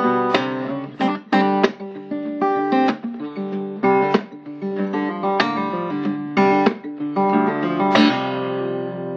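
Background music: acoustic guitar, plucked notes and chords coming every half second or so.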